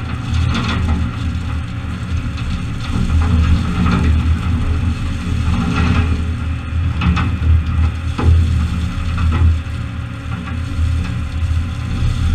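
Massey Ferguson 2850E tractor's diesel engine running steadily while its front-end loader bucket tips crushed stone (Item 4 gravel) into a dump trailer. The stone pours and clatters onto the trailer bed in several rattling spills over the engine drone.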